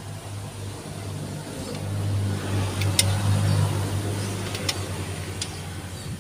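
A low motor-vehicle engine hum that swells for a couple of seconds and then eases off, with a few light metallic clicks of steel tools on the engine's valve train.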